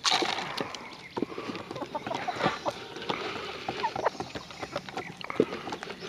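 Chickens pecking grain off a wooden board: rapid, irregular taps of beaks striking the wood, mixed with a few short clucks. A brief loud rustle comes right at the start.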